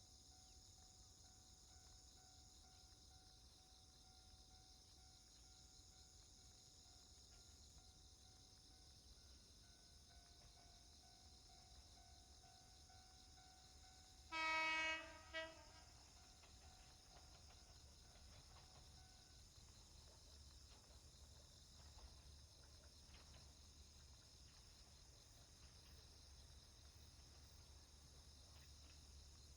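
A diesel railcar's horn sounds a held blast about halfway through, followed at once by a short second toot. Insects shrill steadily throughout.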